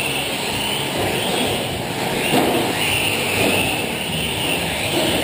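Several electric 4WD short-course RC trucks racing on a clay track: their brushless motors whine, the pitch rising and falling as the drivers throttle through the corners, over the steady rumble of tyres on the dirt.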